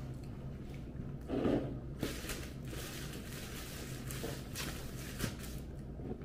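Close-miked chewing of soft food, with wet, squishy mouth sounds, a brief hum through the mouth about a second and a half in, and a few small clicks. A steady low hum runs underneath.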